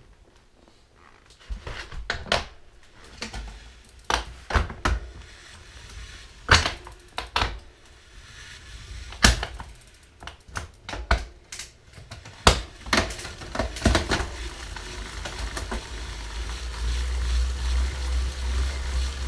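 A string of irregular sharp clicks and knocks, then, from about two-thirds of the way in, the Tacx Vortex Smart trainer's roller and flywheel starting to spin, a steady whir with a low hum growing louder as the wheel speeds up.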